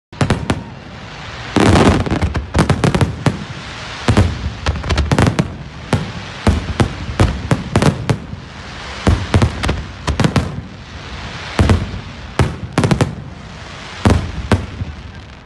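Aerial firework shells bursting overhead: many sharp bangs in quick, irregular succession, some coming in rapid clusters.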